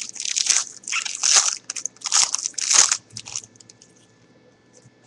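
Foil football card pack wrapper being torn open and crumpled in the hands: a run of loud crinkling crackles that stops about three and a half seconds in.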